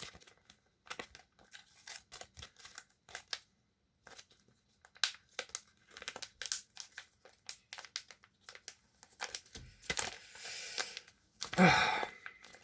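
Foil wrapper of a Yu-Gi-Oh! booster pack crinkling and crackling in the hands as it is worked at and pulled to tear it open, in irregular bursts, with a longer rasping tear and a louder burst near the end.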